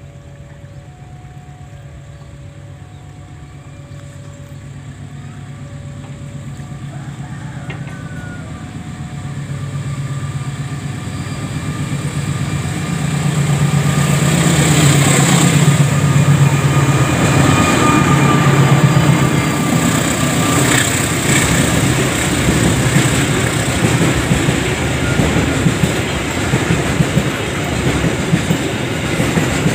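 A level crossing's electronic warning alarm sounds two alternating tones about once a second while a KAI diesel locomotive hauling a container freight train approaches, its engine growing steadily louder. The locomotive passes close by about halfway through, then the container flat wagons roll past with a clickety-clack of wheels over the rail joints.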